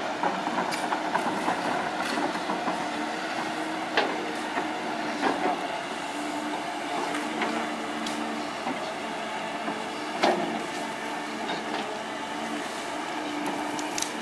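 Caterpillar hydraulic excavator working as it digs up cassava: a steady diesel drone with a whine that comes and goes, and several sharp knocks and cracks, the loudest about 4 and 10 seconds in, as the bucket tears through soil and roots.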